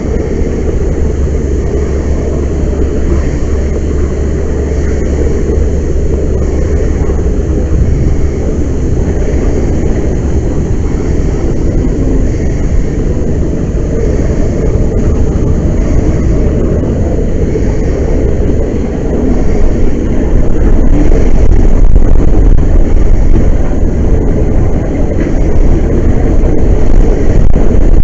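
Steady loud roar of a large fire jetting from the top of a rail tank car, growing louder about two-thirds of the way in.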